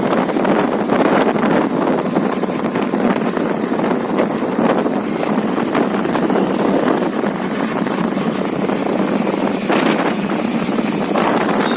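Steady rushing wind noise on the microphone, with no clear engine hum or voices under it.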